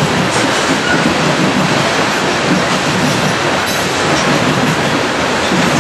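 Freight train of coal hopper cars rolling past, with a steady noise of steel wheels running on the rails.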